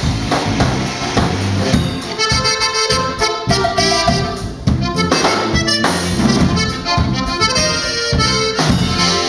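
Live Tejano band playing an instrumental break: an accordion melody over drums and bass.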